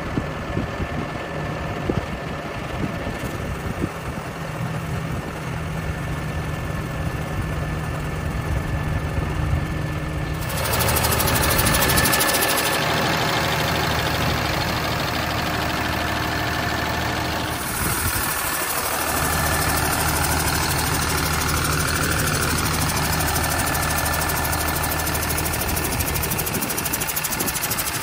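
Cummins QSB6.7 inline-six diesel of a 2016 Ottawa T2 yard truck idling steadily. About ten seconds in it is heard up close in the open engine bay and grows louder and hissier.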